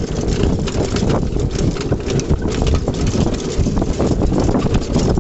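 A pony trotting in harness pulling a cart over grass: hoofbeats mixed with the cart rolling and its frame and trace chains rattling continuously, over a heavy rumble of wind on the microphone.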